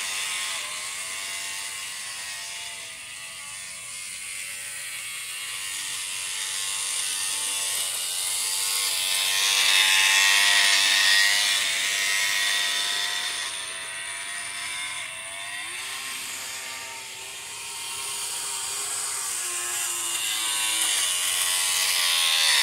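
Model train running around its track: the locomotive's small electric motor gives a steady whine with many overtones that wavers slightly in pitch, over a hissing rattle of wheels on the rails. It grows loudest about ten seconds in as the train passes close.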